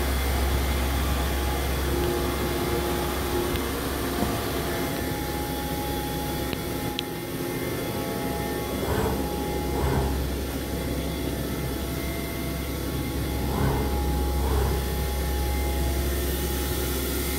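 Hurco VM-1 CNC vertical machining center running a program: a steady whir with a strong low hum and several steady tones, and a short click about seven seconds in.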